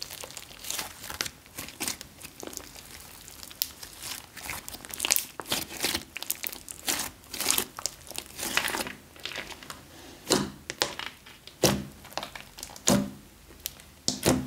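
Pink glittery slime with small beads mixed in being squeezed and kneaded by hand: a stream of irregular sticky crackles and clicks. A few louder, deeper pops come in the last few seconds as the slime is pressed flat against the table.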